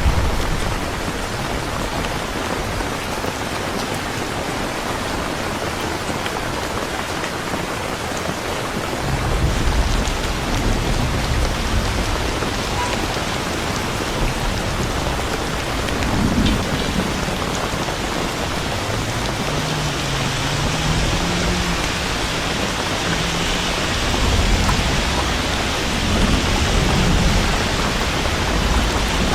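Rain falling steadily in a dense hiss, with low rumbles of thunder coming and going from about nine seconds in.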